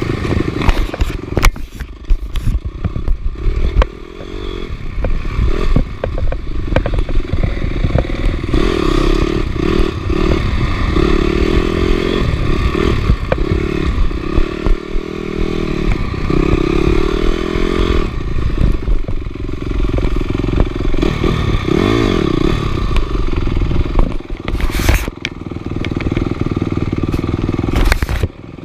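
Motorcycle engine running under way, its pitch rising and falling again and again as the throttle opens and closes, with scattered sharp knocks and rattles.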